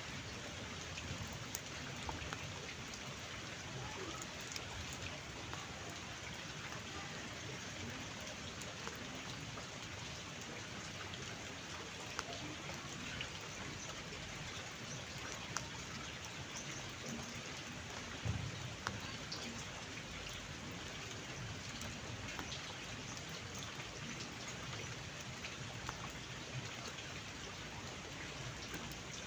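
Steady rain falling, an even hiss with scattered sharper drop ticks. A brief low thump sounds about halfway through.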